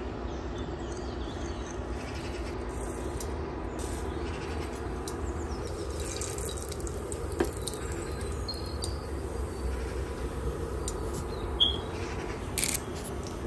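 Mustard seeds sizzling quietly in hot oil in a stainless steel pot, with a few isolated pops, over a steady low hum.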